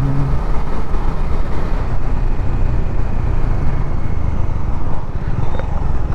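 Bajaj Dominar 400 motorcycle underway on the road, its single-cylinder engine running steadily at cruising speed.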